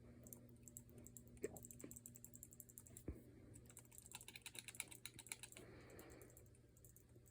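Faint handling noise: a few soft knocks, then a quick run of light clicks about four seconds in, over a steady low hum.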